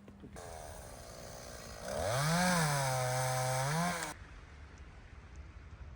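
Chainsaw revving up, its pitch dropping and holding steady as it cuts into a fallen tree, then rising again before cutting off abruptly.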